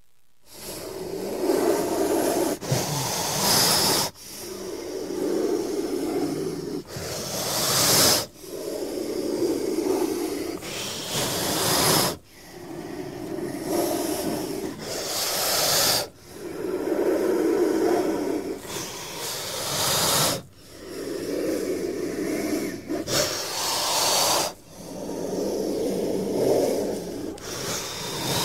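Snake hissing in slow repeated breaths, about seven in all, one every four seconds: each swells up and ends in a sharp, high hiss before breaking off suddenly.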